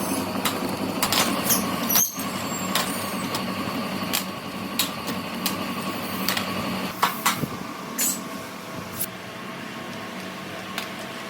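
Factory machinery running with a steady hum, with irregular sharp clicks and knocks throughout that thin out in the last few seconds.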